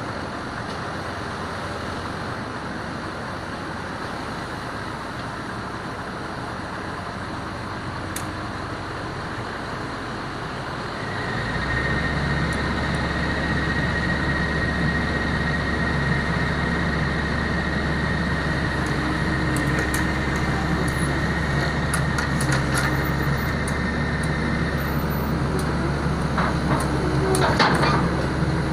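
Heavy-machine diesel engine running steadily. About eleven seconds in it comes under load with a deeper, louder hum, joined for a while by a high steady whine. Several sharp metallic knocks come near the end.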